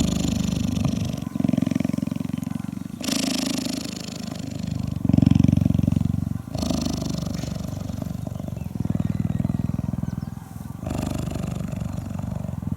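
Cheetah purring close up: a continuous low rumbling purr that swells and breaks about every one and a half to two seconds as it switches between breathing in and out. The purr is the cheetah's contented, friendly state while grooming.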